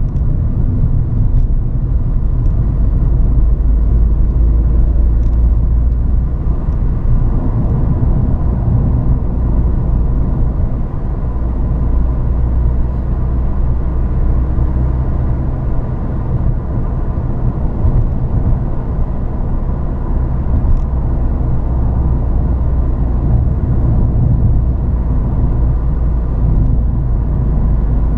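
Ford Fiesta ST's 1.6-litre turbocharged four-cylinder engine running steadily while the car is driven along the road, with a low rumble of engine and tyre noise.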